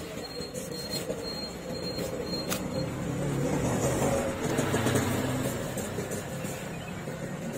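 Low rumbling background noise that builds to its loudest about five seconds in and then fades, with light scraping and a few clicks from a knife scaling a red snapper on a wooden block.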